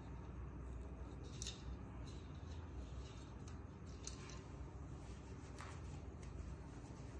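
Metal jointed arm of a spring-loaded swivel stand being handled and folded: faint rubbing and a few sharp clicks, one about a second and a half in and one about four seconds in, over a low steady hum.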